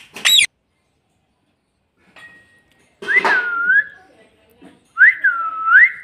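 Rose-ringed parakeet giving a short, sharp rising call right at the start, then whistling: one note that dips and climbs again about three seconds in, and two swooping whistles near the end.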